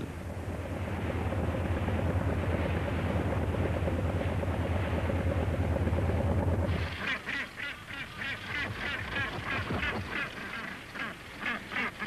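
A fishing boat's engine runs with a steady low hum. About seven seconds in it cuts off and northern gannets call harshly, over and over, at a nest.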